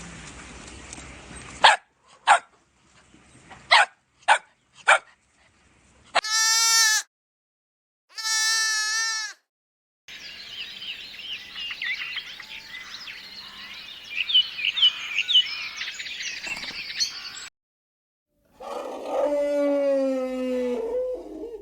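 A run of different animal calls: a few short sharp calls, then two bleats about six and eight seconds in, a long stretch of many short high calls, and a longer, lower falling call near the end.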